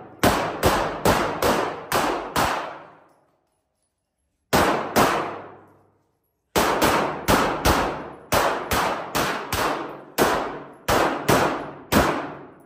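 Handgun fired in quick strings of shots, about three a second and roughly twenty in all. Each shot rings on briefly off the concrete-block walls of an indoor range. The firing stops twice for a second or more.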